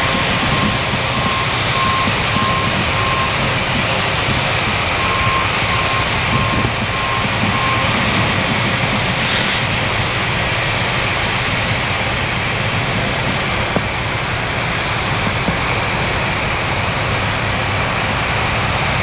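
Grain-elevator loading machinery running steadily while grain pours through the spout into a covered hopper railcar, a constant rumble and hiss. A backup alarm beeps in two runs during the first eight seconds.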